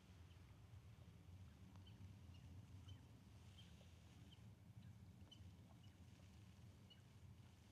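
Near-quiet forest ambience: a small animal gives a series of short, faint, high chirps, about a dozen spread irregularly, over a low steady rumble.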